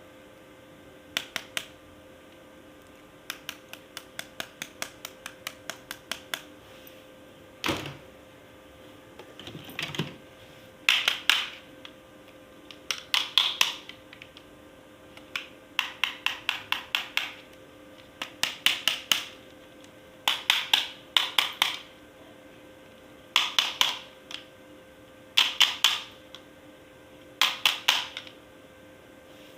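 Rapid mechanical clicking in short runs of about three to eight clicks, roughly eight clicks a second, repeating every two seconds or so. There is a duller knock about eight seconds in, and a steady low hum underneath throughout.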